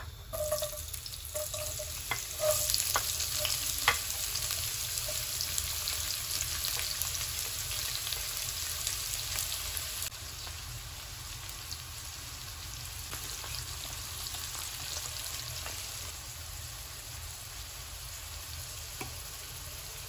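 Sliced onions going into hot oil in a nonstick pan and frying with a steady sizzle. A few sharp taps and clatters in the first four seconds as they are tipped in; the sizzle drops a little at about ten seconds and then runs on evenly.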